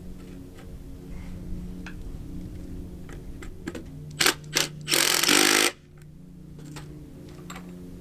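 Cordless drill run in two quick blips, then for just under a second, about halfway through, driving a fastener into the bottom sill board of the door opening.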